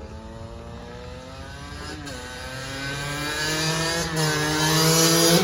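Kawasaki KX100 dirt bike's two-stroke single-cylinder engine revving up under way. Its pitch climbs, drops sharply twice, about two and four seconds in, as it goes up through the gears, and the sound grows louder throughout.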